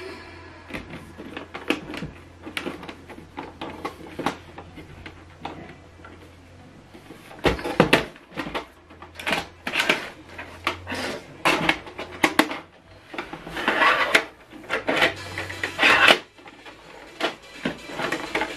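Plastic clicks, knocks and rattles of an HP DeskJet 3750 printer being handled as a cable is plugged into its back and its paper input tray is opened. The sounds are light at first and grow louder and busier about halfway through.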